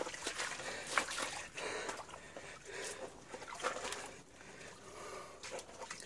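Irregular footsteps and scuffs on a tunnel's dirt floor, with heavy, labored breathing.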